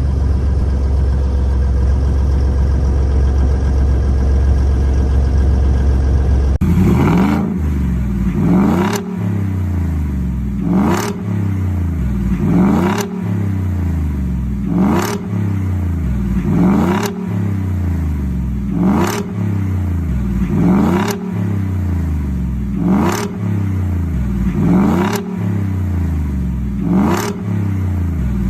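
Ford F-150 SuperCrew pickup engine idling steadily, then revved repeatedly from about six seconds in, roughly once every two seconds, each rev rising and falling back to idle.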